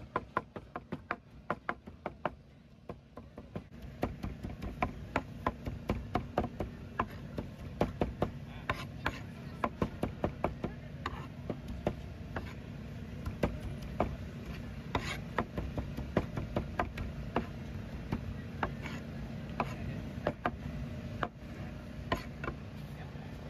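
Steel cleaver chopping braised pork and pork skin on a plastic cutting board: rapid, repeated knocks, several a second, over a steady low hum.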